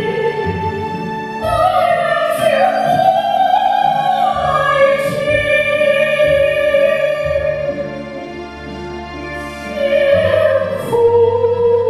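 Two women singing a duet in a trained, operatic style into handheld microphones over an instrumental accompaniment, holding long notes with vibrato. The singing softens briefly about eight seconds in, then swells again.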